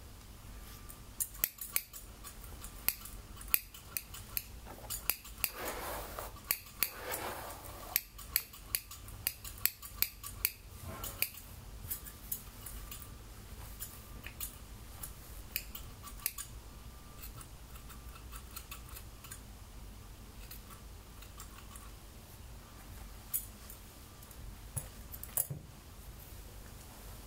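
Scissors snipping through wet hair: a quick run of crisp snips through the first half, then only scattered snips, with a last few near the end.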